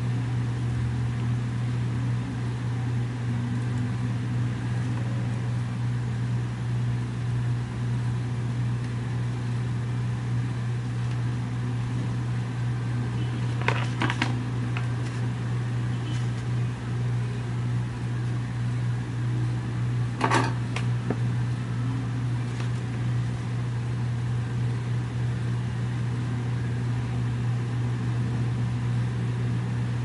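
Steady low mechanical hum, like a room fan, runs throughout. Two sharp clicks come through it, one about halfway through and another some six seconds later.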